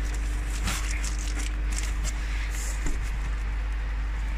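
Steady low hum of the pond pump running water through the PVC pipework, under an even hiss, with a few light knocks as the pipe union and valve are handled during a leak test.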